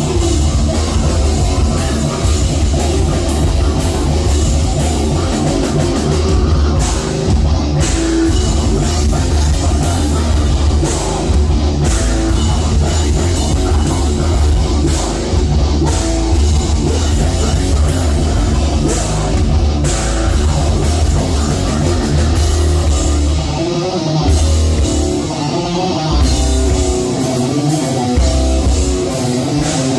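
A heavy metal band playing live and loud: distorted guitars over a drum kit, with a heavy bass low end. Near the end the bass drops out in short stop-start gaps.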